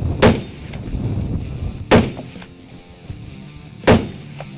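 Three shots from a Barrett .50-calibre semi-automatic rifle, each one sudden and loud and spaced about two seconds apart, over background music.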